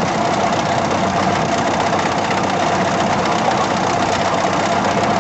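Heavy construction machine's engine running steadily, with a steady whine on top.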